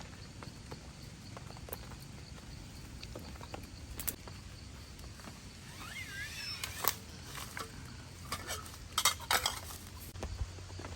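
Steady rain patter with sharp clinks and a brief scraping squeak of metal cookware and utensils, the loudest cluster of clinks near the end.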